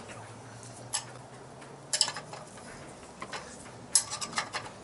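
Ring spanner tightening a bicycle's front axle nut: a few sharp metallic clicks and clinks of the spanner on the nut, about a second apart, with a small cluster near the end.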